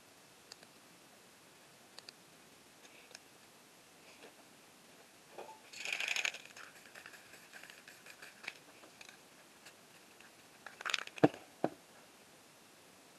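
Faint handling noises while working a spray-paint painting by hand: scattered light clicks, a brief rustle about six seconds in, and two sharp knocks near the end.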